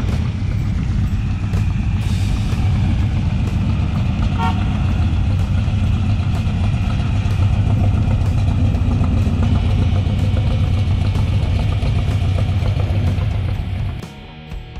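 Classic and muscle cars rolling past in slow cruise traffic: a steady, loud low engine and exhaust rumble, with a drum-beat music track underneath. About a second before the end the rumble drops away sharply.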